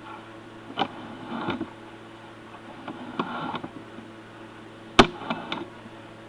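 Sewer inspection camera and its push cable being fed along a cast iron drain pipe: scattered knocks and short scrapes, the sharpest click about five seconds in, over a steady low electrical hum.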